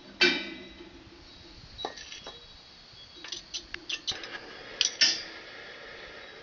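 A soldering torch being handled and lit: a series of sharp clicks and metallic clinks, loudest near the start and about five seconds in, followed by a steady hiss of the flame.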